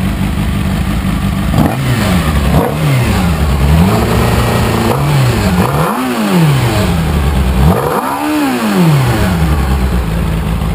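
Kawasaki Ninja motorcycle inline-four engine, carbureted with open pod filters, being revved: the revs rise and fall several times with quick throttle blips, the last and longest about eight seconds in, then settle back to a steady idle near the end.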